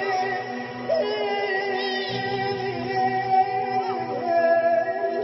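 A man singing long, wavering held notes over a steady low musical drone.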